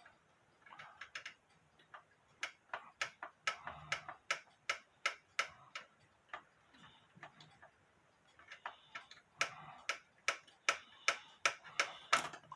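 A mechanical clock ticking steadily, about two and a half sharp ticks a second, fading for a couple of seconds midway.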